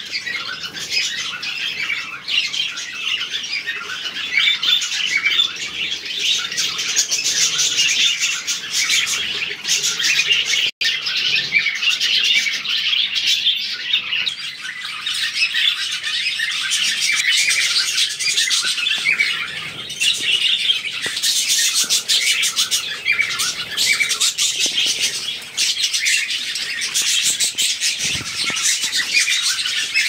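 A flock of budgerigars chattering: a dense, continuous mass of overlapping chirps, warbles and squawks. It cuts out for an instant about eleven seconds in.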